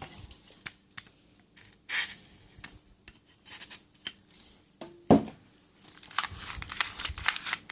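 Small metal clicks and scraping as a Lockwood 355 deadlock's mechanism is worked and handled by hand, with a sharp click about two seconds in and a louder knock about five seconds in.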